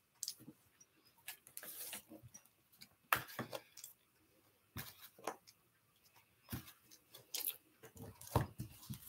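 Faint, scattered clicks and rustles at irregular moments, a few close together, with quiet between them.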